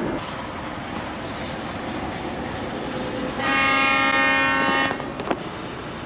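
Steady background hiss and rumble, then about three and a half seconds in a single steady horn blast lasting about a second and a half.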